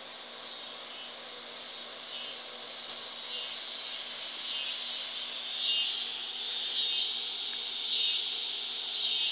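Insects buzzing in a high, steady chorus with a swell repeating about once a second, growing louder about three seconds in; a single faint click near three seconds.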